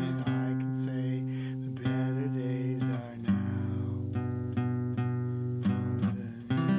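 Steel-string acoustic guitar strummed in ringing chords, with steady strums about two to three a second in the second half. A wordless vocal line is held over the first few seconds.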